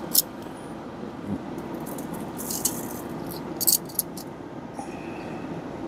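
Light metallic clinks and rattles of the pellet grill's wire grates and top rack as chicken drumsticks are set on and shifted. There is a sharp click just after the start, then two quick clusters of clinks around the middle, over a steady background noise.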